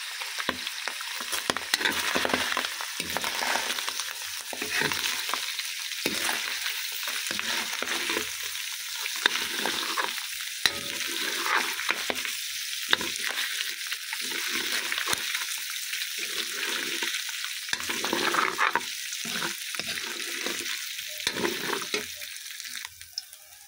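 Pork cubes frying and sizzling in a metal wok with a steady hiss, stirred with a metal ladle that scrapes and clacks against the pan at irregular moments.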